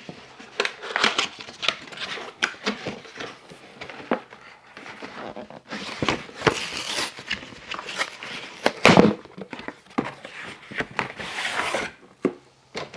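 A parcel's packaging being opened by hand: irregular crinkling, rustling and tearing with small knocks, louder in several stretches about six, nine and eleven seconds in.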